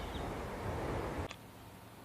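Steady outdoor background noise with a low rumble that cuts off abruptly just over a second in, leaving a much quieter faint hiss.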